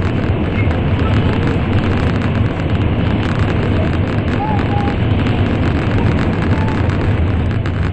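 Shinkansen train running at speed through a tunnel, a loud, steady, deep rumble of wheels and air heard from inside the passenger cabin.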